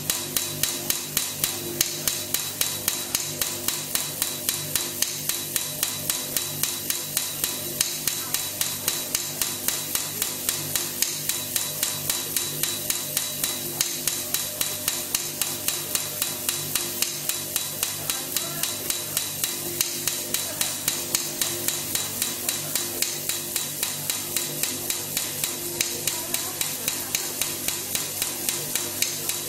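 Live electronic music from a laptop and pad controller: a steady, sharp click repeating about three times a second over a low sustained drone and a tone that pulses on and off.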